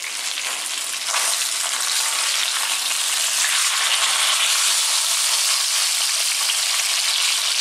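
Scored tilapia frying in hot oil in a nonstick frying pan: a steady sizzling hiss that builds up over the first second and then holds.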